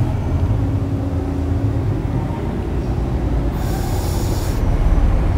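A loud, steady low rumble, with a brief hiss about three and a half seconds in.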